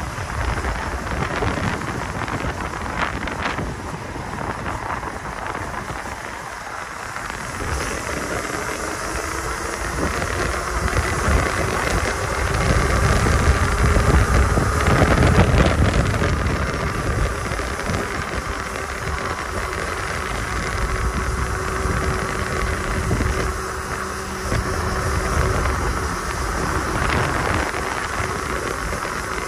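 Electric dirt bike being ridden: wind rushes over the microphone, loudest about halfway through, with a faint whine that rises slowly and then holds steady.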